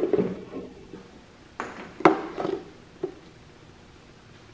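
Light metallic clinks and knocks from hand work fitting a new rubber fuel line to the fuel filter and carburetor fittings. They come in three short bunches: at the start, around two seconds in, and a single knock about three seconds in.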